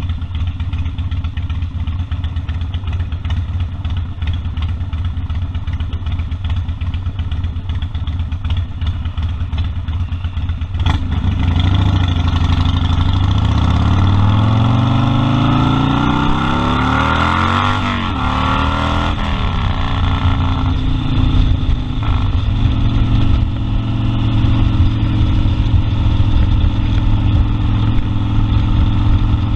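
Harley-Davidson Sportster 1200 Custom's air-cooled V-twin running steadily at low revs, then accelerating from about a third of the way in. The revs climb, drop back at a gear change, and settle into a steady cruise.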